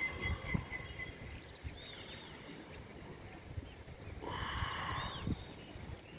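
Outdoor ambience of birds chirping, with one louder animal call lasting about a second, a little after four seconds in, over a low rumbling noise.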